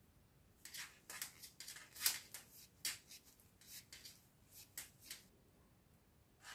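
Two 3.5 mm knitting needles clicking and scraping faintly against each other and the yarn as knit stitches are worked, an uneven run of short ticks, two or three a second, that stops near the end.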